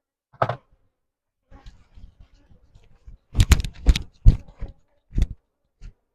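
Irregular sharp clicks and knocks, wooden beehive frames and hive gear being handled, with a quick cluster of knocks past the middle and faint scraping between them.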